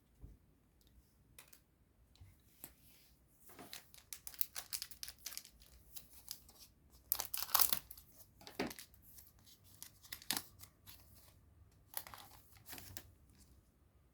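Foil wrapper of a Digimon Card Game booster pack being torn open and crinkled: a string of irregular crackling tears and rustles, loudest about halfway through.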